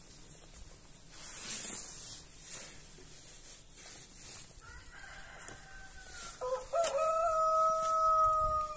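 A cloth swishes across a car window, then about five seconds in a rooster crows: a long held call that grows loud and drops in pitch as it ends.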